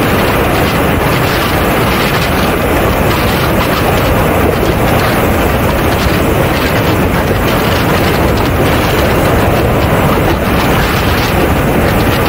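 Mibo A-10 radio-controlled model jet in flight, heard from a camera under its belly: a loud, steady rush of airflow and engine noise that holds the same pitch throughout.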